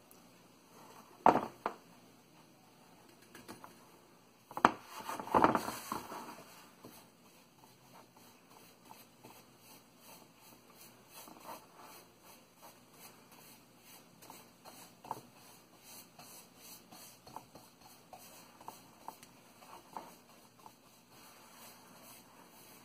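A paintbrush brushing latex paint onto bare wood, heard as faint scratchy strokes with small ticks. There are two louder knocks, about a second in and again around five seconds in.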